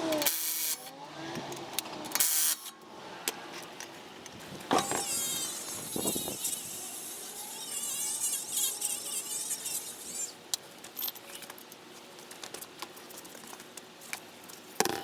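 Tools working on a car wheel's lug nuts: sharp metal clicks and knocks, with a stretch of wavering tool noise in the middle.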